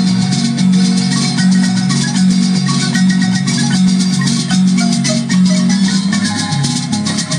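Upbeat dance music with a bright, marimba-like melody of short notes over a steady bass line and a fast shaker rhythm.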